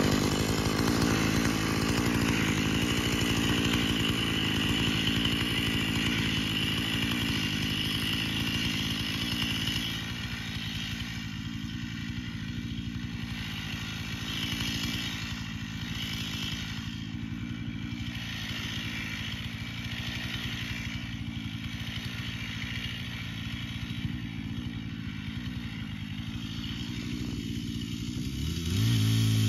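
Chainsaw idling steadily, growing fainter about ten seconds in as it is carried away across the frozen lake. Near the end it revs up, rising in pitch, as it is set to the ice to cut a hole for winter nets.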